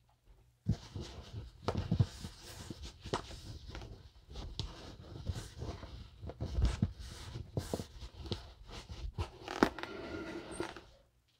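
Fabric rustling and brushing as a blouse and skirt are handled and adjusted on a dress form, with scattered light taps and clicks. It starts just under a second in.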